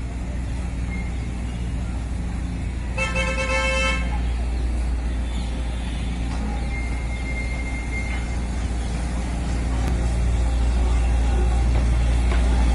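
Miniature park train's horn gives one toot about a second long, about three seconds in, over a low steady rumble that grows louder near the end as the train comes closer.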